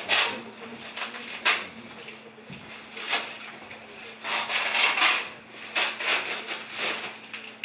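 Clothing and bags being handled and searched: fabric rustling in a series of separate swishes.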